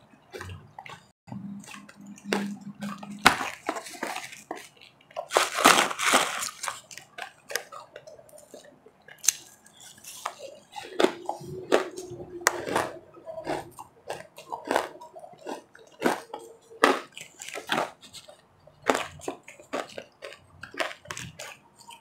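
Close-miked chewing and crunching of refrozen powdery ice in the mouth: many irregular sharp crunches, densest about six seconds in.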